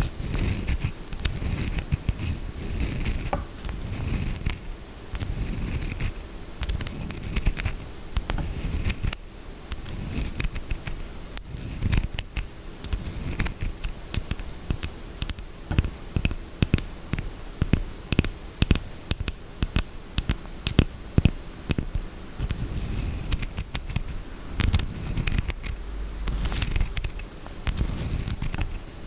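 Scratching and tapping on a bar of soap: rapid dry scratches and sharp clicks in uneven bursts.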